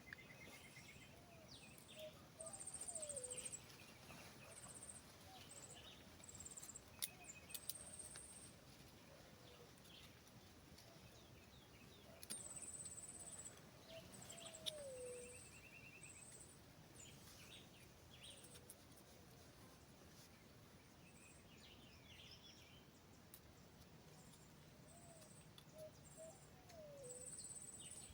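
Faint outdoor ambience of birds and insects calling. Short high buzzy chirps repeat throughout, a low falling whistled call comes three times, and there are a few light clicks.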